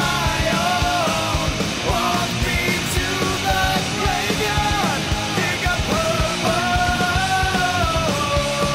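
Background rock music with a singer over a driving drum beat.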